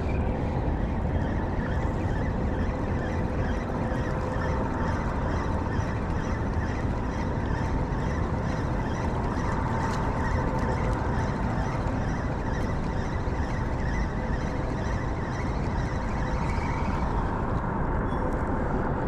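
Coast Guard helicopter running overhead: a steady rumble with a faint steady whine.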